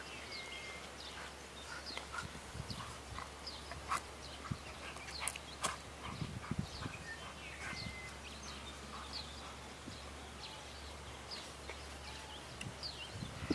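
Outdoor ambience of small birds chirping over and over, with a few sharp clicks and soft thuds, the clicks about four and five and a half seconds in.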